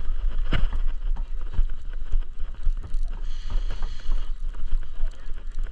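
Fishing boat's engine running with a steady low rumble, with scattered knocks and clicks of gear on deck.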